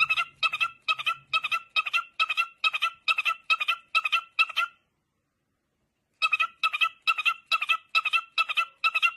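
A parrot making a rapid, repeated call of two quick notes each, about two calls a second. The calls stop for about a second and a half near the middle, then start again at the same pace.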